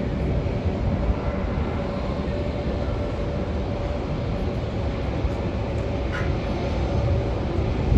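Jet engines of a landing Boeing 757-232 (Pratt & Whitney turbofans): a steady rumble with a faint steady whine running under it.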